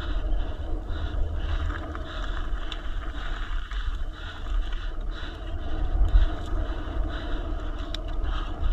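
Wind buffeting the camera microphone while an enduro e-mountain bike is ridden fast down a trail: a heavy, gusting rumble over the hiss of tyres on dirt, with a few sharp rattles from the bike.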